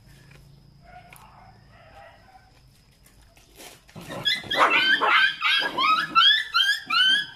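A young animal crying out in rapid high-pitched yelps, about three a second. They begin about four seconds in and are loud.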